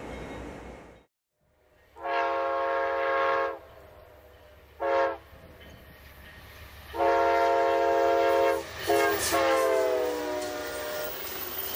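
Amtrak GE Genesis P42DC locomotive's multi-note air horn sounding as the train passes: a long blast, a short one and another long one, then a last blast that drops in pitch as the locomotive goes by. The rumble of the passing train runs underneath.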